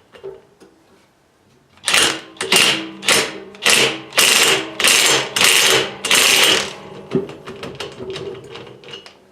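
Small impact wrench hammering in about eight short bursts, each with a whirring motor, as it runs the pulley bushing bolts up snug. Light metal clicks follow near the end.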